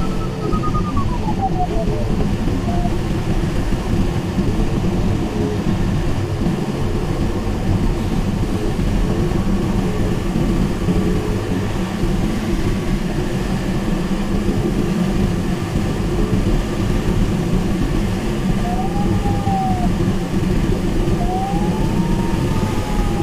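Airflow rushing over the canopy of a Mini Nimbus HS7 glider in flight, a steady loud noise heard from inside the cockpit. Over it the electronic variometer's thin tone slides down in pitch in the first couple of seconds and falls quiet, then comes back near the end with a short beep and a tone that rises and falls; its pitch follows the glider's climb and sink.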